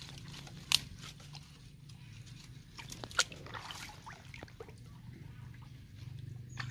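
Dry twigs and leaves crackling and snapping as a slatted bamboo fish trap is pushed into place in brush at the water's edge, with a few sharp snaps, over a steady low hum.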